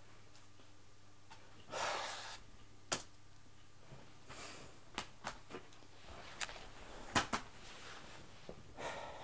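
A man huffing out breaths of frustration a few times, with scattered clicks and knocks as the laptop is handled and put aside; the loudest is a sharp knock about seven seconds in.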